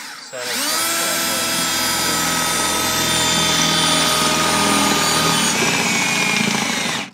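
Cordless drill spinning up and boring a hole through the tractor's cab floor, its motor whine rising to speed and holding steady for about five seconds. The pitch sags a little near the end before the drill stops.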